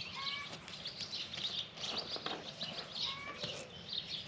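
Small birds chirping busily, with a short clear whistled call heard twice, about three seconds apart.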